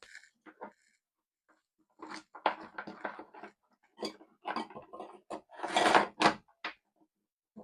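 Hands working electrical cable and fittings: irregular clicks, scrapes and rustles in short bursts, with a near-silent pause about a second in.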